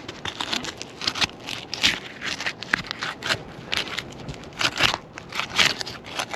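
3-tab asphalt shingles being unsealed from the roof, the sealant strip tearing loose in a run of irregular crackles and scrapes. The shingles are sealed down well.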